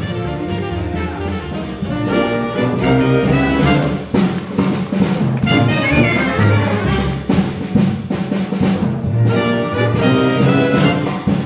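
Large jazz ensemble playing together live: saxophones, trumpet and tuba with violin, cello, upright bass and drums, the full band sounding at once.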